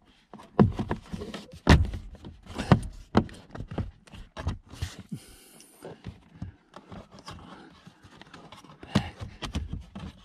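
Hands working a Nissan Qashqai's plastic interior trim and wiring: irregular sharp clicks and knocks, several in the first three seconds and another near the end, with a brief rustle about five seconds in.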